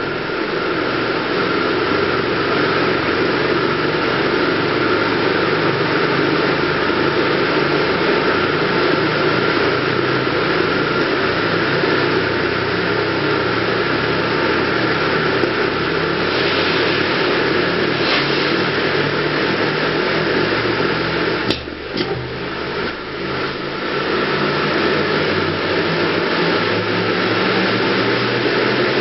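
Steady rushing, machine-like noise inside a pipe as a dual diameter pipeline pig is driven along it towards the camera. About 21 seconds in the noise dips briefly, with a few sharp knocks.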